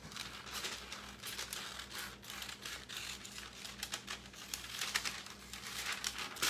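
A sheet of parchment paper crinkling as it is handled and cut with scissors, in an irregular run of rustles and snips.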